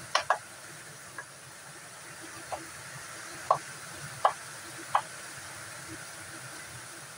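Kitchen knife chopping meat on a wooden chopping board: a handful of sharp, irregularly spaced knocks as the blade strikes the board, over a faint steady hiss.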